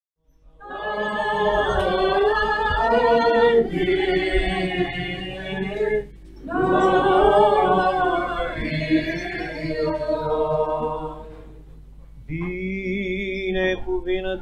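Orthodox church choir singing unaccompanied liturgical chant: two long phrases with a short break about six seconds in, then a quieter held passage near the end.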